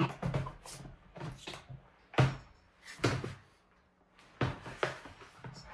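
A hard plastic carrying case being opened: its snap latches click open and the lid swings up. The result is a series of sharp plastic clicks and knocks, the loudest a little over two seconds in.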